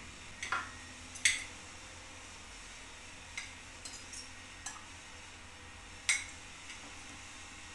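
Dishes and utensils being handled: about eight light clinks and knocks, the two loudest about a second in and about six seconds in, some with a short ring.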